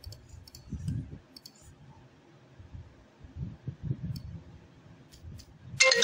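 Computer mouse clicking a handful of times with a few dull low bumps, as shapes are drawn on screen. Just before the end a loud melody of clear held notes starts up.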